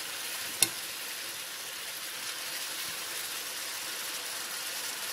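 Mushroom, tofu and snow pea stir-fry cooking in a pan with a steady hiss, with one sharp click about half a second in.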